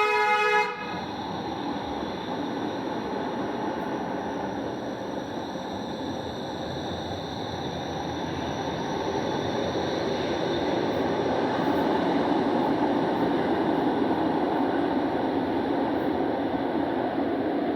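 Light rail train running, heard from inside the car: a steady rumble of wheels and motors that grows louder partway through as the train picks up speed. A short tone sounds right at the start.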